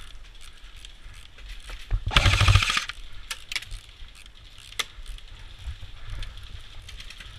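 Airsoft Thompson submachine gun firing one short full-auto burst, a rapid chatter of shots lasting under a second, about two seconds in. Scattered light clicks and knocks of gear handling follow.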